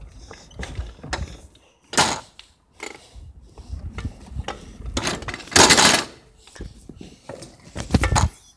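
Pedal go-kart rolling over concrete: a low rumble from its rubber tyres, with knocks and rattles from its metal frame about two seconds in, around six seconds and near the end.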